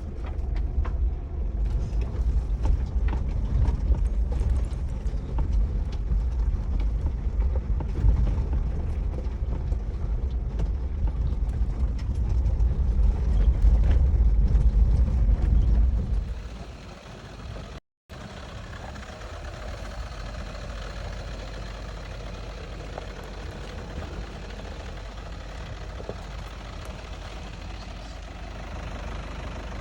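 Off-road vehicle running with a loud, low rumble and scattered knocks for about sixteen seconds. It then fades and, after a short break, gives way to a quieter, steady engine sound.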